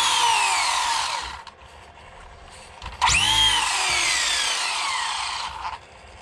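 Traxxas Drag Slash's brushless motor and drivetrain whining under throttle on a 3S battery, then falling in pitch as it spins down and fading after about a second. About three seconds in, a second quick blip rises sharply and winds down again over about two and a half seconds.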